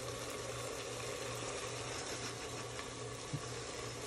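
A pan of food sizzling on a hot stove as a steady, even hiss, over a constant low hum.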